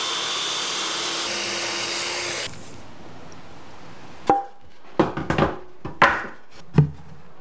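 Corded circular saw cutting through a white-faced plywood panel. It runs steadily for about two and a half seconds and then stops. Several short knocks and scrapes follow.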